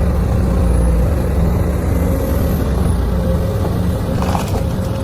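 Excavator's diesel engine running steadily, with a deep pulsing low end. It cuts in abruptly, and there are a few light clicks about four seconds in.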